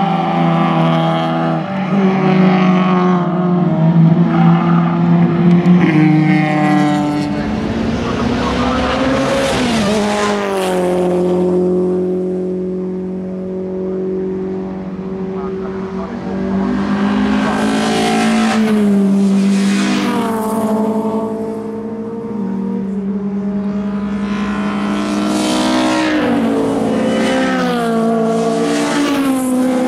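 Racing cars' engines running hard as the cars pass on the circuit one after another, the pitch climbing and dropping with gear changes and lifting off. The loudest passes come about a third of the way in, about two-thirds in and near the end.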